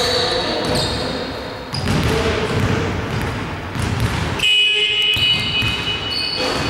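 Sounds of a basketball game on a hardwood gym court: the ball bouncing and players' sneakers squeaking several times, with running footsteps, all ringing in a large hall.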